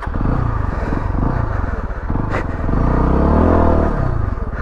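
Beta ALP 4.0 dual-sport's single-cylinder four-stroke engine (a Suzuki DR350 motor) running, its revs rising and falling back about three and a half seconds in.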